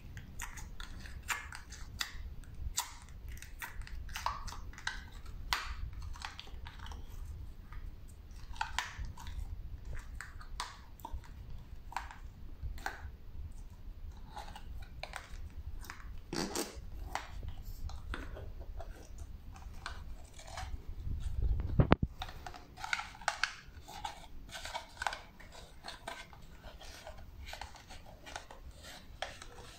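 Pink slime squeezed and kneaded by hand, then pressed inside a clear plastic cup, giving many small wet clicks and pops. One louder thump comes about three quarters of the way through.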